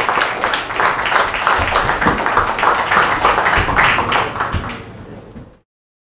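Audience applauding, a dense patter of many hands clapping that dies away near the end and then cuts off abruptly.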